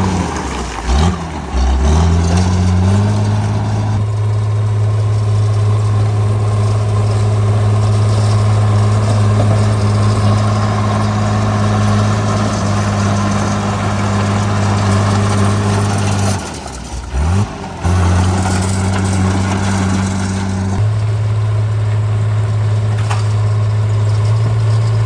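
Caterpillar D3C bulldozer's diesel engine running steadily at working revs. Its pitch sags and climbs back twice, about a second in and again around seventeen seconds.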